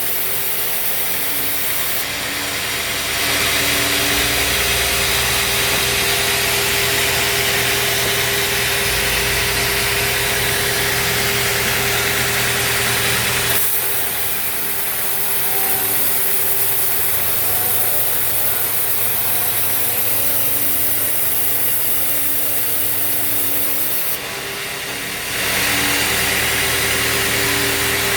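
Band sawmill running: a steady motor hum under the hiss of the band blade cutting through acacia wood, louder through long stretches of the cut. The cutting noise eases off about halfway through and comes up again near the end.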